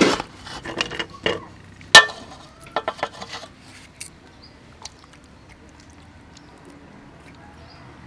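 Bamboo skewers knocking and scraping against a metal mixing basin as marinated cuttlefish are threaded onto them: a quick run of clatters in the first half, the sharpest about two seconds in, then quiet handling.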